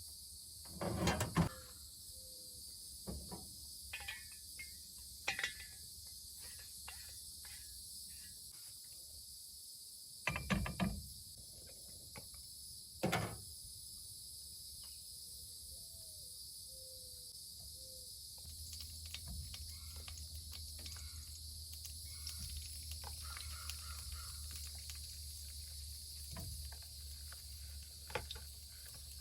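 A steady high-pitched chorus of insects, with scattered knocks and clatters of camp gear being handled. A low steady hum comes in about two-thirds of the way through.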